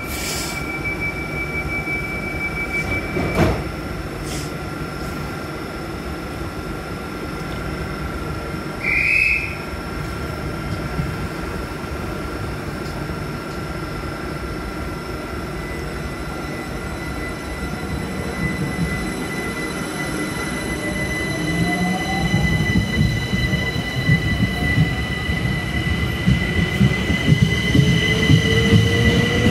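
Gatwick Express Class 387 electric multiple unit standing at the platform with a steady electrical hum, with a sharp knock about three and a half seconds in and a short high beep near nine seconds. From about twenty seconds in the train pulls away: the traction motor whine rises in pitch and wheel and rail noise grows louder.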